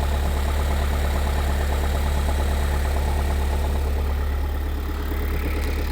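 Kia Sorento 2.2 diesel engine idling steadily, heard from underneath the car, with an even diesel clatter. The knock from its dual-mass flywheel has gone now that the engine is warm.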